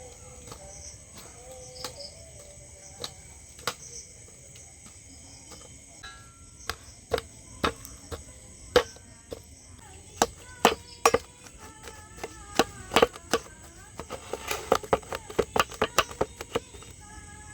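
Knife chopping on a cutting board in sharp, irregular strokes, sparse at first and then a quick run of strokes near the end.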